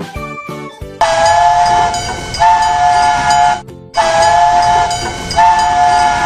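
Train whistle sounding two long chord blasts of about two and a half seconds each, with a short break between them. Children's music with a beat plays for about the first second.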